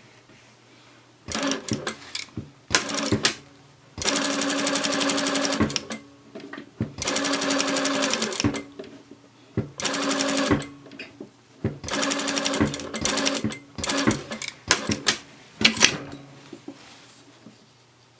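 Sewing machine stitching in stop-start runs: a few short bursts, then several even runs of one to two seconds each, then short bursts again, stopping near the end.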